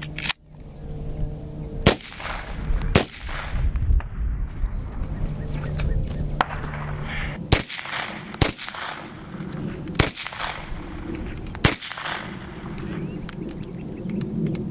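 Type 14 Nambu pistol firing 8mm Nambu rounds: about six single shots at uneven intervals, each a sharp crack with a short echo.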